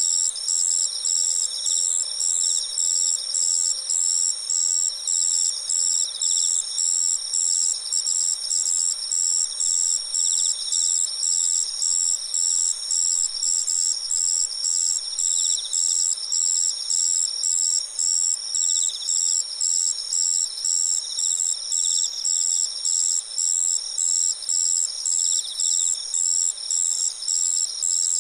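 A chorus of autumn crickets singing together, several high steady trills layered over one another. One insect calls in short, evenly spaced chirps about twice a second, which the recordist wonders may be a madarasuzu ground cricket (Dianemobius nigrofasciatus). Another adds brief trills from time to time.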